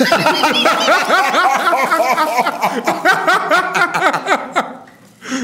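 Hearty laughter, a long run of quick rising-and-falling laughs that dies away near the end.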